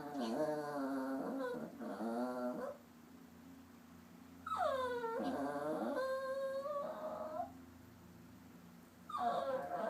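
A papillon-mix dog making long, wavering, whine-like vocalizations that bend up and down in pitch, in three drawn-out bouts with short pauses between; the owner takes it for the dog sulking because she is upset.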